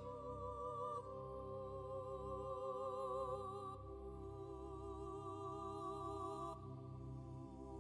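Background music: slow, sustained tones with vibrato, changing chord about every second or so.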